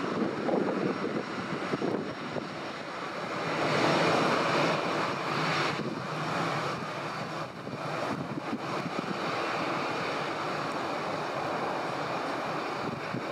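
Airbus A321-211's CFM56 turbofan engines running at taxi power: a steady jet rush and whine that swells slightly about four seconds in.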